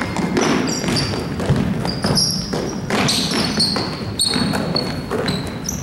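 A basketball game on a gym court: the ball bouncing and sneakers squeaking in many short high squeaks, over the echoing chatter of the crowd.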